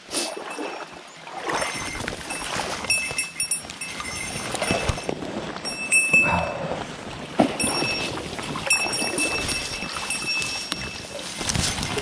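A person struggling up a steep riverbank through brush, breathing hard and grunting amid irregular rustling and brushing of vegetation and clothing.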